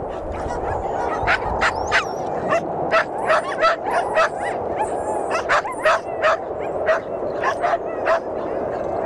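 Herding dogs yapping and barking in many short, repeated yips, over the steady noise of a reindeer herd on the move.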